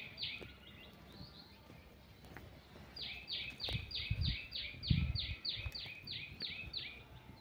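A small bird calling in a quick, even series of about a dozen identical high notes, each sliding downward, about three a second, starting about three seconds in; a couple of single notes come earlier. A few low thuds sound under the calls in the middle.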